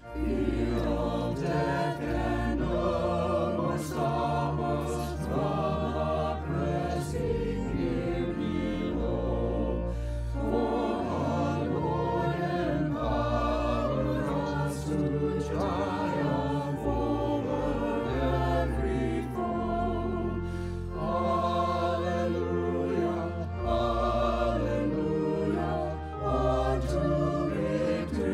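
Choir singing a sacred piece with several voices over sustained low bass notes, continuous throughout.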